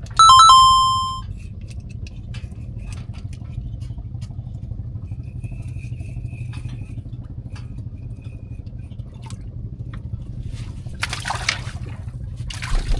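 A short electronic chime of a few held tones, then a steady low engine-like hum with faint scattered clicks and two short rustling noises near the end.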